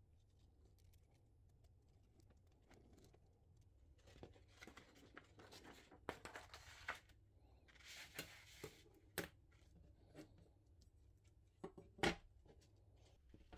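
Thin black walnut wood veneer sheet rustling as it is handled and flexed, then a few sharp taps near the end as a steel ruler is laid down on it.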